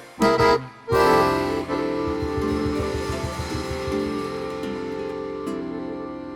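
Accordion ending a tune: a short chord stab, a brief break, then a long held final chord over a pulsing bass line, slowly fading.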